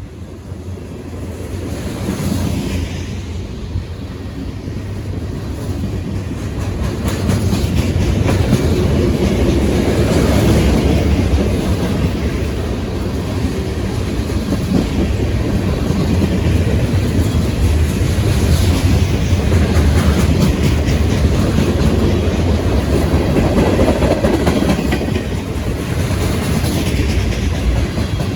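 Mixed manifest freight train's cars rolling past, steel wheels clacking over the rail joints in a steady rumble that builds over the first several seconds.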